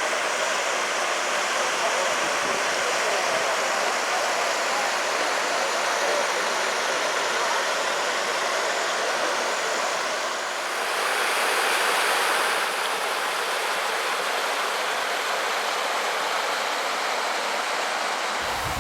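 Rushing water, a steady even rush that swells a little about eleven seconds in.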